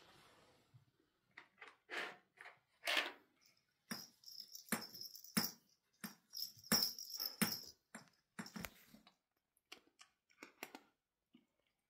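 A cat pawing and nosing a red plastic treat puzzle bowl: irregular clicks, knocks and rattles of its small plastic cups and base, with two spells of jangly rattling around the middle, thinning out to a few light clicks near the end.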